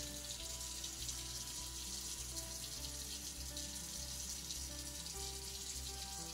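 Background music: a slow melody of held notes over a steady hiss.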